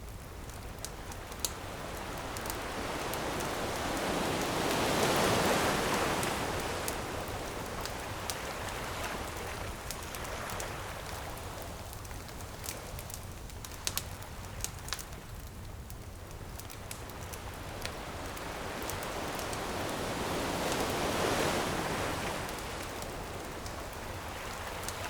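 Ocean waves breaking and washing in, swelling about five seconds in and again near the end, with a bonfire crackling in scattered sharp pops.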